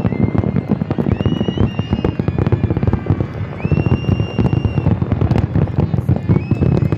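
Fireworks grand finale: a dense, continuous barrage of rapid-fire bangs and crackles with no let-up, with several high whistles over it.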